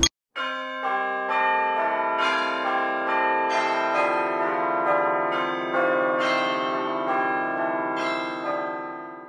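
Background music: a run of sustained, ringing notes that come in one after another and fade out near the end.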